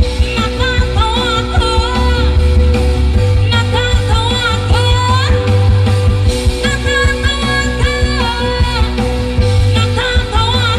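A woman singing a slow song, with long held notes that waver, over a backing track with heavy bass, played loud through a PA sound system.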